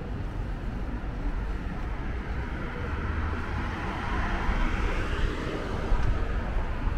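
A car passing on the street, its tyre noise swelling to a peak about four seconds in and then fading, over a steady low rumble.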